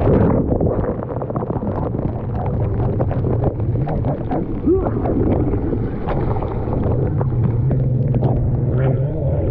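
Yamaha stand-up jet ski engine running at a low idle, a steady low hum that gets stronger in the second half, with water slapping and splashing against the hull and wind buffeting the helmet-mounted microphone.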